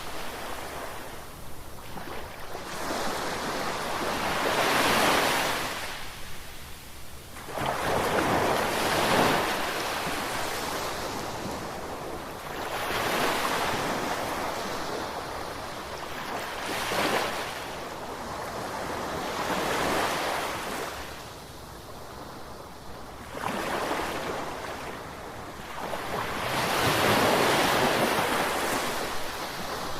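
Ocean surf: waves breaking and washing up the shore one after another, each surge of rushing water swelling and fading about every three to four seconds.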